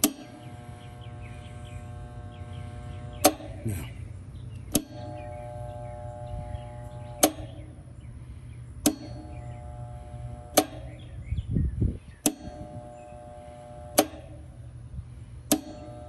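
Condenser contactor repeatedly clacking in and out as its coil is energised and cut by hand, a sharp click every one and a half to two and a half seconds, with a buzzing hum while it is pulled in. Each click out shows the contactor releasing cleanly, so it is not sticking and is ruled out as the cause of the freezing.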